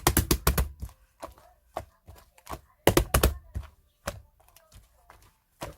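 Rapid clicks and knocks in two quick clusters, one at the start and one about three seconds in, with a few scattered clicks between.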